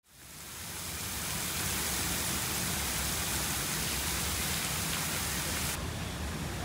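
A steady, dense hiss with a low rumble beneath it, fading in over the first second or so; its highest part cuts off abruptly near the end.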